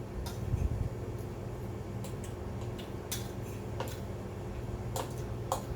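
Eating sounds: scattered light clicks of cutlery against dishes, with some wet chewing, over a steady low hum.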